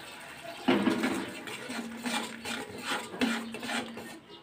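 Metal spatula scraping and knocking against a metal kadai while a spice and mustard paste is stirred and fried in oil. The strokes start about a second in and come in a quick irregular run, several followed by a short ring from the pan.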